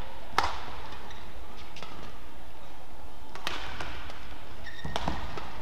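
Badminton rally: rackets striking the shuttlecock with sharp cracks about every one and a half seconds, the loudest about half a second in, with short shoe squeaks on the court and a low steady hall hum.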